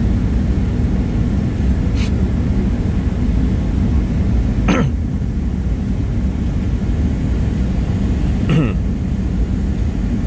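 Steady low roar inside the cabin of a Boeing 737-800 on final approach: its CFM56-7B engines and the airflow over the fuselage. Two brief falling-pitch sounds cut through it, about five and eight and a half seconds in.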